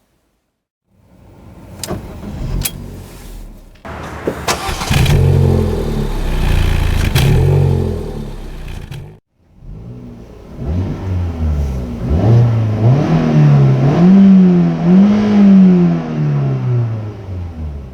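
Ford Fiesta 1.25-litre four-cylinder petrol engine: a couple of clicks, then the engine comes to life about four seconds in and runs steadily. After a sudden break it is revved up and down several times, the two highest revs near the end.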